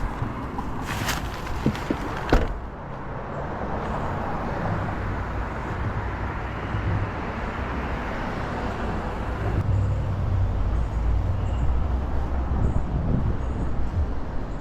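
A car on the move, with a steady engine rumble and tyre road noise. A few sharp clicks or knocks come in the first two seconds, and the rumble grows a little stronger near the end.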